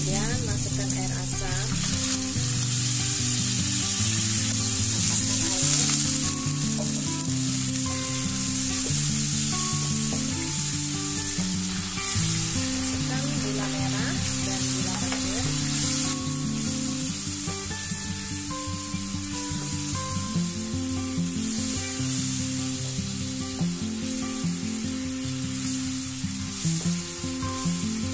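Spice paste frying in oil in a wok with a steady sizzle, stirred with a spatula that scrapes the pan now and then. Soft instrumental music plays underneath.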